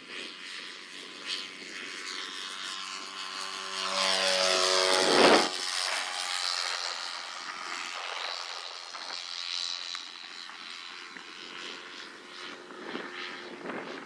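Radio-controlled model Piper Cherokee's propeller engine on its takeoff run and climb. It grows louder to a pass-by about five seconds in, where its pitch drops, then fades to a steadier, more distant drone as the plane climbs away.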